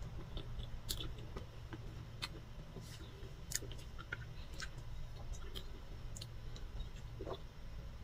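Close-up mouth sounds of someone chewing soft chocolate layer cake with cream icing: scattered small wet clicks and smacks at irregular intervals, over a low steady hum.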